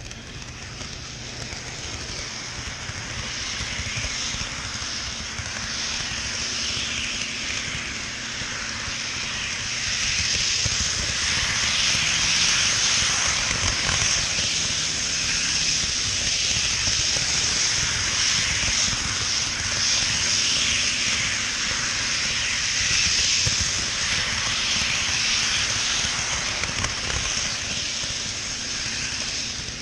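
HO scale model train running on its track, heard from a camera riding on the train: a steady rolling noise of wheels on rail and motor that builds up over the first several seconds, holds, and eases off near the end.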